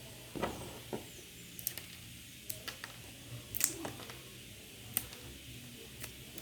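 Scattered light clicks and knocks, about seven over several seconds, from hands working macaúba palm fruits to crack and peel off the husk.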